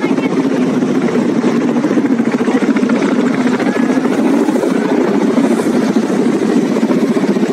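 Formation of Mi and Ka military helicopters flying overhead, their rotors making a steady, rapid beating chop.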